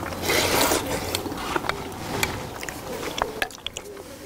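Mukbang eating sounds: a loud slurp from a bowl of seafood stew broth about half a second in, then scattered small clicks of chopsticks against the bowl and sea snail shells.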